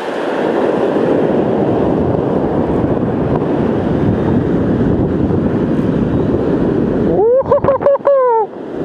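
Strong wind buffeting the microphone over the rush of breaking surf. About seven seconds in, a short high-pitched tone rises and falls for about a second.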